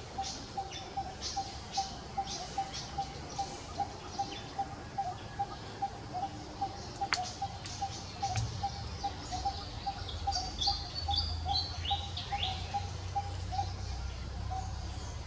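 Birds calling: a steady run of short, evenly spaced notes, about three a second, under sharp high chirps that are thickest in the first few seconds, with a short run of stepped high notes about ten seconds in. A low rumble comes in during the second half.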